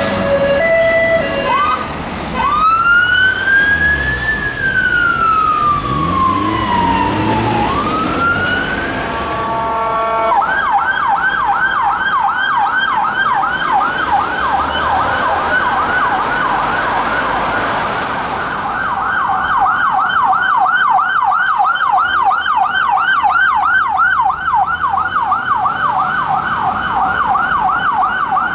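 Emergency vehicle sirens passing in street traffic. A short two-tone siren gives way to a slow wail rising and falling. About ten seconds in, a fast yelp takes over, cycling about three times a second, and runs on through the rest.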